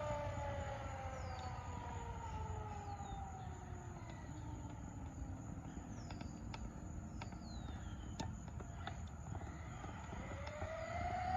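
Brushless electric motor of a Traxxas Maxx RC monster truck whining on a full-throttle speed pass on a 4S LiPo. The whine falls in pitch and fades over the first few seconds, stays faint, then rises in pitch and grows louder near the end.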